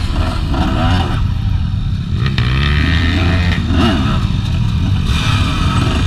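Motorcycle engines running, with the revs rising and falling between about two and four seconds in.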